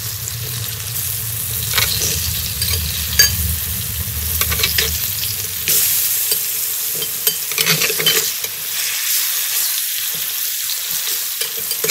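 Chum salmon steaks and potato chunks sizzling steadily in hot oil in a frying pan. Scattered clicks and scrapes of a metal spatula and tongs turning the pieces.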